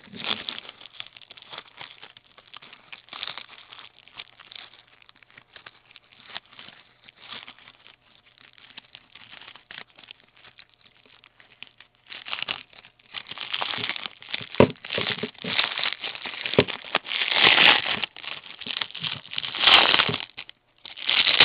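Crinkly plastic wrapper on a candy apple being handled and pulled open: steady crackling, growing louder and busier over the second half.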